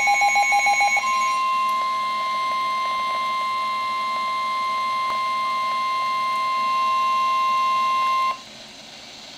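NOAA Weather Radio warning alert tone: a single steady high tone held for about seven seconds that cuts off sharply, leaving faint radio hiss. It is preceded by about a second of a rapidly pulsing tone.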